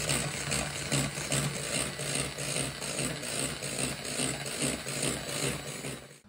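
Electric hand mixer running, its beaters whipping egg whites into meringue in a stainless steel bowl: a steady motor hum with a regular pulsing. It switches off near the end.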